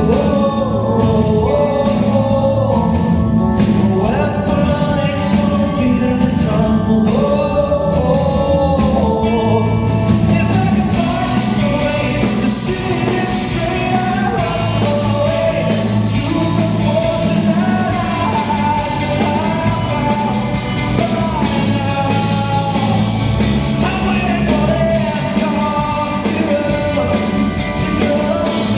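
A pop-rock song performed live: a singer's voice over a band, with a regular beat that stands out in the first ten seconds.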